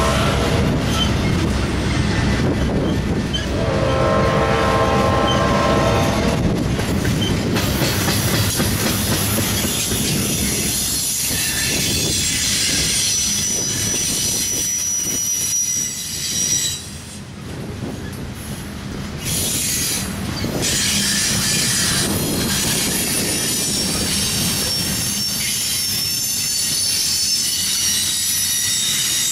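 Double-stack intermodal freight cars rolling past on the rails: a continuous rumble of steel wheels on track. A pitched tone sounds for a few seconds about three seconds in, and a thin high wheel squeal runs for a few seconds near the middle.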